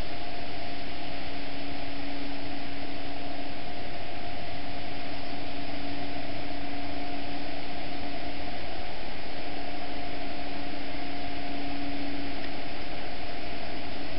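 Canal lock gate machinery running as the lock gates swing open: a steady hum with two held tones over a loud, even hiss.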